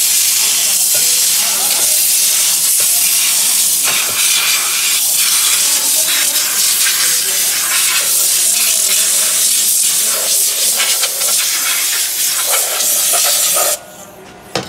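Loud, steady hiss of a compressed-air siphon solvent spray gun blasting a transmission clutch drum clean, flickering as the jet plays over the part. It cuts off suddenly near the end, followed by a single sharp click.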